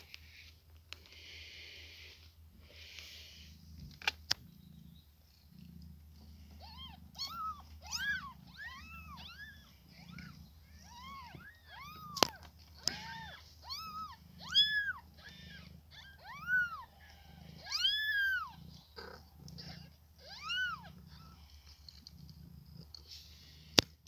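Newborn kittens mewing: a string of short, high-pitched mews, each rising and falling, over a low pulsing purr from the mother cat. A few sharp clicks stand out along the way.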